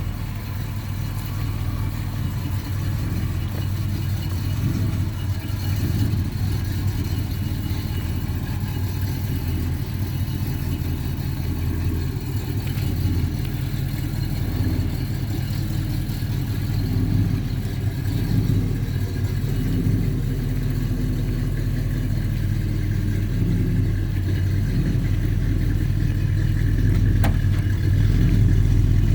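1970 Chevy Malibu's engine running steadily with a low drone, growing a little louder near the end.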